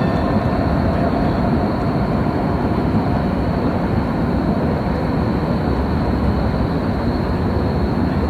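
Steady city-square ambience: a continuous low rumble of traffic with no distinct events.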